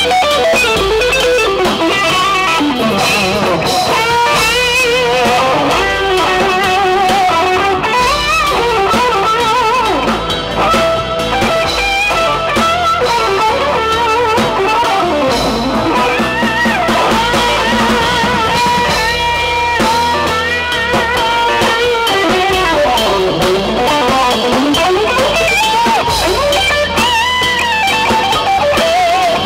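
Live band playing an instrumental passage: a lead electric guitar line with bent and wavering notes over drums and cymbals.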